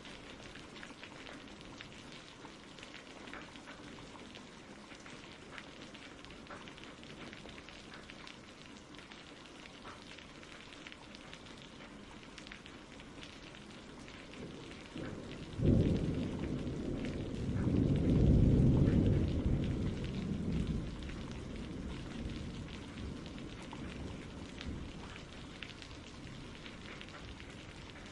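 Steady rain falling, with a clap of thunder a little past halfway: a sudden crack, then a low rumble that swells for a few seconds and dies away.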